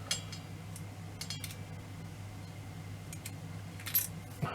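Small metal clock parts clinking and clicking as they are handled and fitted: a few light taps, the sharpest about four seconds in, over a steady low hum.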